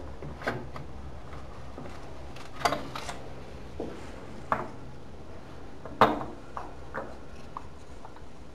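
Small metal and glass ornaments clinking and tapping as they are picked up and set down on a glass tabletop: about half a dozen separate sharp knocks with a brief ring, the loudest about six seconds in.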